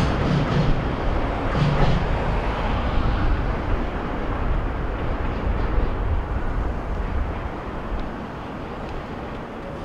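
Oil tank-car freight train rumbling away after passing, with a few wheel clicks in the first couple of seconds, the noise slowly fading.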